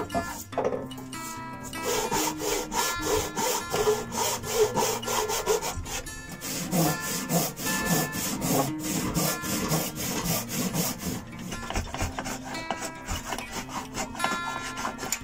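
Hand saw cutting through an oak board with quick, even back-and-forth strokes.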